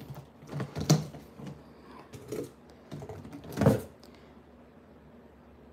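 Plastic hand soap pump bottles clacking and knocking against each other as they are shifted around in a cardboard box: a handful of sharp clicks, the loudest a little before four seconds in.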